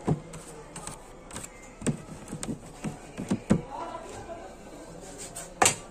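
Irregular knocks and clatter of kitchen utensils and dishes being handled: about six sharp single knocks at uneven spacing, the loudest a little before the end.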